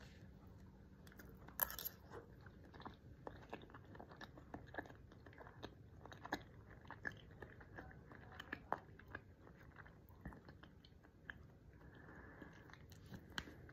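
Faint, close-up chewing of a mouthful of food, with many small irregular mouth clicks and smacks.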